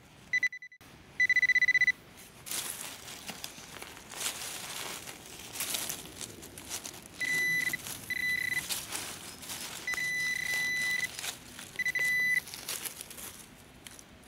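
Metal detecting pinpointer beeping at one steady pitch, several beeps of a fraction of a second to about a second each, as it is held to the dug soil: the sign that it is picking up a metal target. Between the beeps, scraping and rustling of soil and dry leaves being dug and handled.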